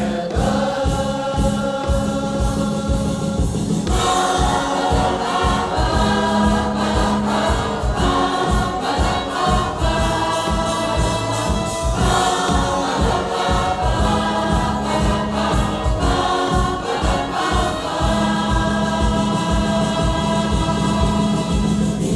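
Music: a choir singing held chords over instrumental backing with a steady beat, the chords changing about every four seconds.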